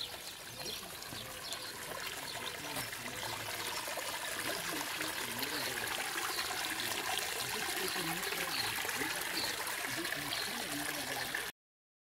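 Spring water pouring from a pipe into a rock basin and running along a stone channel: a steady trickling and splashing that grows a little louder, then cuts off abruptly near the end.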